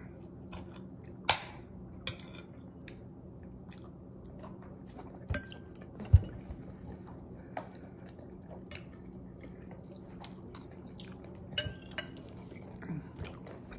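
A metal spoon clinking and scraping against a ceramic plate now and then while someone eats, with chewing in between and a steady low hum underneath. A dull thump about six seconds in is the loudest sound, and a quick run of clinks comes near the end.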